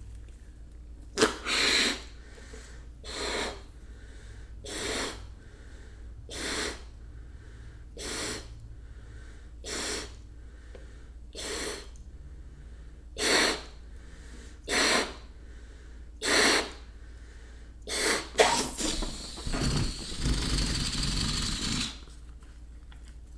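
Breaths blown into a rubber balloon by mouth, about ten puffs at a steady pace of roughly one every second and a half. Near the end, air rushes out of the balloon as it deflates, a continuous hiss lasting about three seconds.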